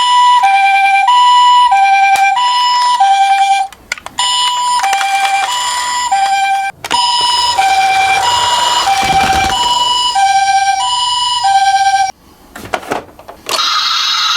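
Toy ambulance's electronic siren sounding a two-tone hi-lo wail, the high and low notes each held about 0.7 s in turn. It cuts out briefly twice and stops about twelve seconds in, followed by a few clicks.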